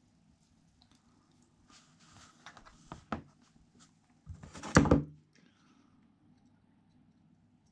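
Small metal gearbox parts and hand tools being handled on a rubber work mat: scattered light clicks, then a louder clatter and knock about four and a half seconds in.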